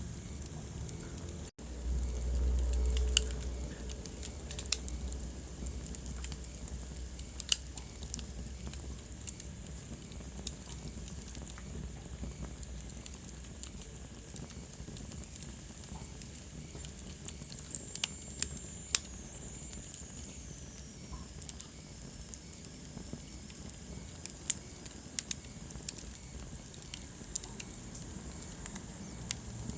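Wood fire burning in a fireplace: scattered sharp pops and snaps over a low, steady rumble of flame. The sound drops out for an instant about a second and a half in, then the rumble swells briefly. Later, a faint high hiss glides down in pitch, like steam escaping from a log.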